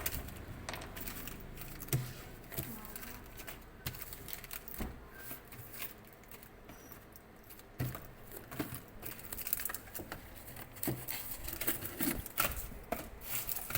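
Hands rummaging through small plastic-bagged phone spare parts: plastic rustling with scattered light clicks and taps of small items.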